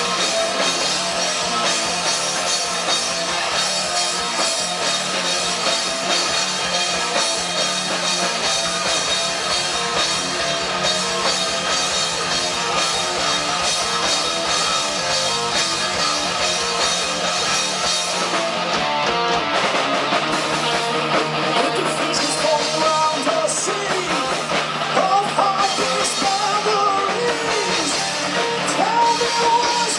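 Live rock band playing an instrumental passage with distorted electric guitars and a drum kit; a bending guitar line comes in over it in the second half.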